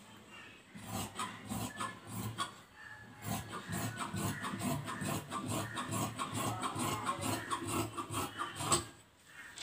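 Scissors cutting through several layers of folded dress cloth on a table: a quick run of crunching snips that starts about a second in and stops shortly before the end.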